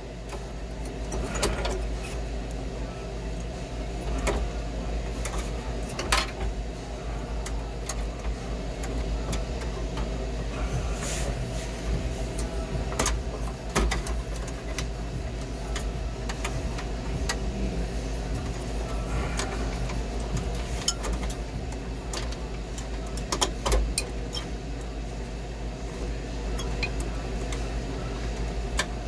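A steady mechanical hum with a low rumble runs throughout. Scattered light clicks and taps come from handling the copper capillary tube and sensing bulb against the evaporator coil.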